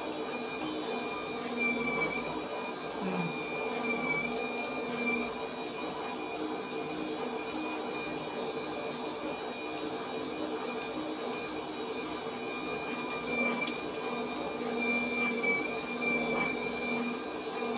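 Electric cotton wick making machine running steadily as cotton is fed between its rollers: a continuous motor hum with a high, steady whine over it.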